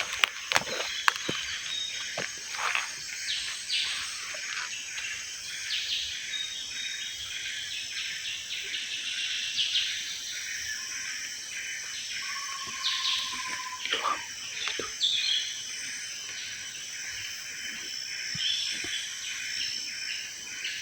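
Forest insects keep up a steady high drone while several birds chirp and call. A bird whistles a single falling note about midway, and again near the end. A few sharp clicks come right at the start.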